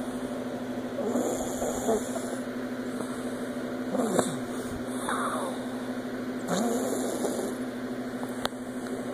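Snoring: slow, rough breaths coming every couple of seconds, over a steady low hum.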